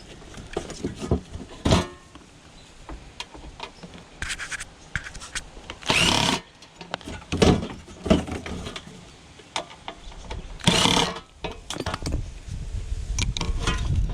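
Metal casing and parts of an air conditioning unit being worked apart with tools: scattered clicks, knocks and scrapes, with two short, louder rasping bursts about six and eleven seconds in.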